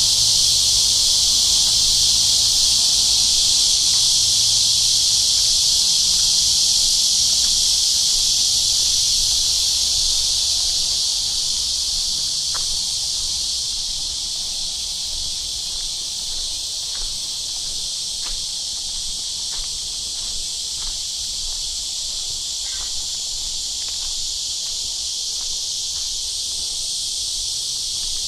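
A chorus of cicadas buzzing steadily and high-pitched, easing off a little about halfway through.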